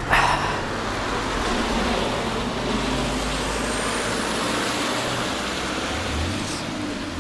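Cars driving past close by on a wet road, their tyres hissing on the wet surface, swelling and then easing off near the end, with one short sharp thump right at the start.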